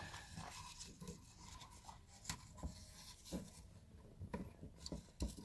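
Faint rubbing and scattered light clicks of a fine abrasive belt being fitted by hand onto a Work Sharp Ken Onion Edition knife sharpener, with the motor off.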